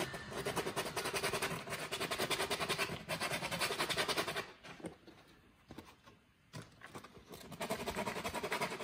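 Hand-sanding the cut edge of a plastic bumper cowl with 80-grit sandpaper: rapid short back-and-forth scratchy strokes, smoothing the freshly trimmed towbar cutout. The sanding stops for about three seconds midway, then resumes near the end.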